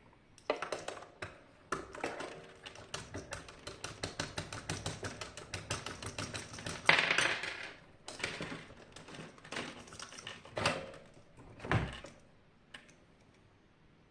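Rapid metallic clicking and tapping from hand tools working on the water heater's parts during disassembly, several clicks a second. A scrape comes about seven seconds in, and a few separate knocks near the end.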